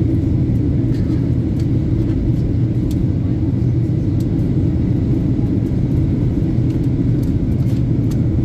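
Steady low rumble of airliner cabin noise, the engines and airflow heard from inside the aircraft.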